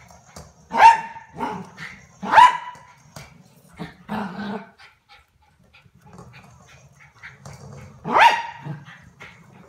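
Small long-haired dog barking: three loud barks, about a second in, at two and a half seconds and near the end, with quieter barks between.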